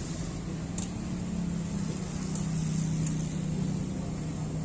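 Motor scooter engine running at low speed: a steady hum that swells slightly midway, with a few faint sharp ticks.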